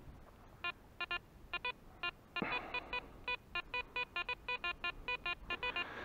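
Garrett Ace Apex multi-frequency metal detector giving short same-pitched target beeps, scattered at first, then about three to four a second from halfway in, as the coil sweeps over a target. The signal jumps about, which is put down to the heavy ground of a sea beach.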